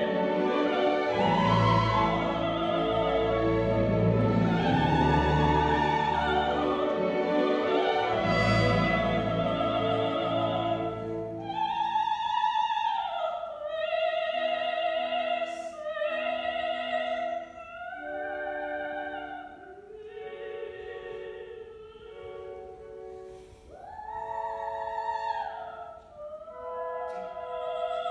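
Opera performed live: singers with full orchestra, then about twelve seconds in the music thins to a single high voice singing sustained notes with vibrato over light orchestral accompaniment.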